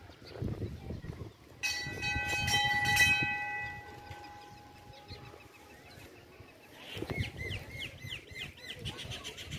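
Metal temple bell rung at the gate, its ringing tone sounding for a couple of seconds and then fading away. About seven seconds in, a bird starts chirping in quick repeated notes.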